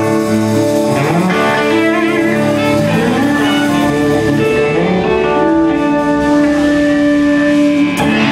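Live rock band playing, with guitar to the fore and long held notes.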